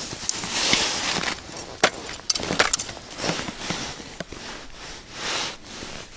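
Jacket-sleeve rustling and a handful of sharp clicks, several of them close together about two to three seconds in, as the fishing line is jerked by hand over an ice hole, working a lure retriever to knock free an ice jig snagged on an underwater branch.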